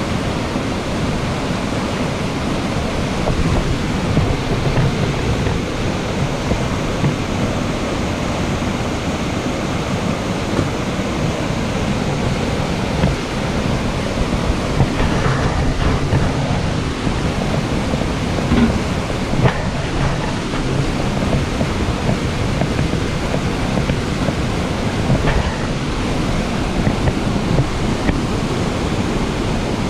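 Water gushing steadily from a water tank's spout into a steam locomotive's tender as the engine takes on water.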